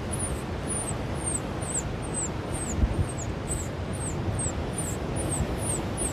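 Steady low rush of surf and wind, with a run of thin, high chirps that slide downward, repeating two or three times a second. A short low thump comes about three seconds in.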